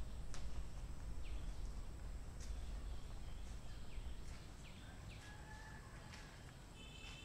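Forest ambience: wild birds giving short, falling chirps every second or so, with a few sharp clicks and brief whistled notes, over a steady low rumble.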